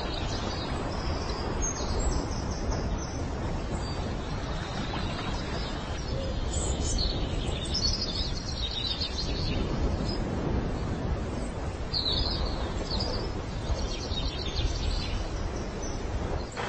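High bird chirps in short scattered runs over steady background noise.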